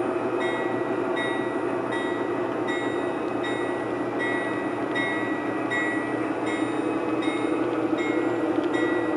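O scale model freight cars rolling steadily along the track, with a continuous rumble of wheels on rail. A short high ringing tone repeats about every two-thirds of a second over it.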